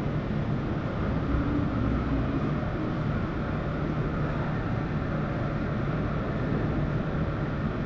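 Steady background din of a livestock auction barn: an even rush of noise with a faint low hum underneath, and no single event standing out.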